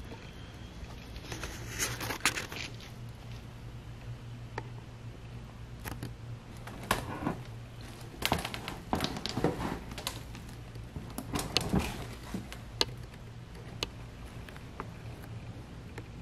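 Handling noises from a cast intake manifold being lifted, turned over and set back into its foam-lined cardboard box: scattered light knocks, clicks and rustles, busiest in the middle, over a steady low hum.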